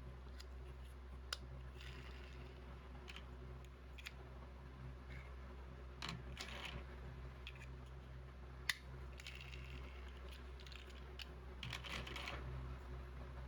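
Small plastic toy building bricks clicking and rustling as they are handled and pressed together, in scattered faint clicks with a sharper snap about a second in and another near nine seconds, over a steady low hum.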